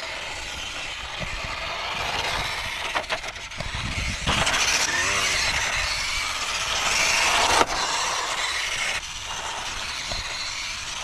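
WPL D12 RC kei truck driving over rough asphalt: its small electric motor whines steadily and its tyres hiss on the grit. The noise gets louder about four seconds in, and there is one sharp click a little past halfway.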